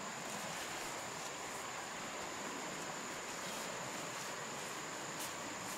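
Steady rush of flowing stream water, with a constant high-pitched insect drone over it.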